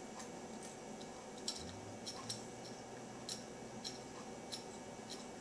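Faint, irregular small clicks from a pocket watch and its tiny parts being handled while a small screw is worked at.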